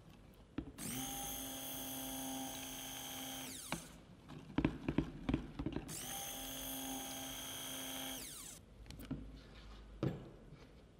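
Stick blender running in two bursts of about three seconds each in soap batter in a plastic jug, the motor winding down at the end of each burst. Between the bursts comes a cluster of loud knocks, the blender head striking the jug, and one more knock near the end as the blender is set down in the jug.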